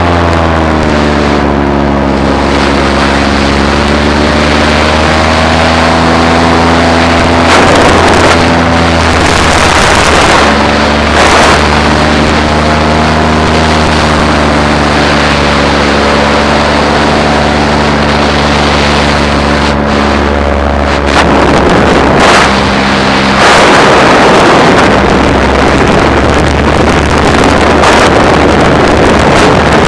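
Paramotor engine running in flight, its pitch dipping near the start and then rising and holding as the throttle changes, with gusts of wind buffeting the microphone several times.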